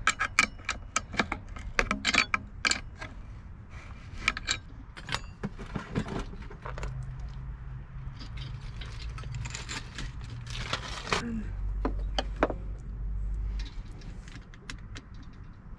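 Metal wrench clinking against the nuts and studs of a diesel heater's metal mounting plate as the nuts are tightened: a quick run of sharp metallic clicks for the first several seconds, then scattered clicks. A low rumble runs through the middle few seconds.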